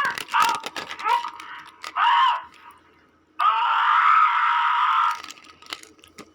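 High-pitched screaming: a few short wavering cries, then a pause and one long harsh scream starting about three and a half seconds in and cutting off after under two seconds.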